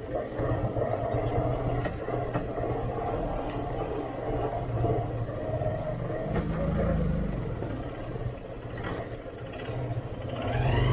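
Motorcycle engine running at low revs on a rough off-road trail, swelling briefly about two-thirds of the way through and revving up near the end.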